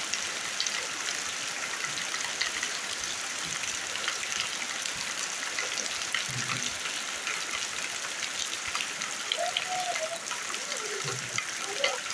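Rainwater falling to the ground: a steady hiss of rain with many separate drops ticking through it. A faint gliding call-like sound comes in about nine and a half seconds in.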